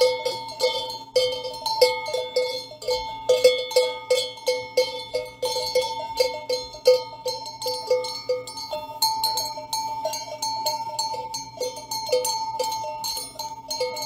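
Bells on a grazing flock of sheep clanking irregularly, a few strokes a second, several bells ringing at different pitches.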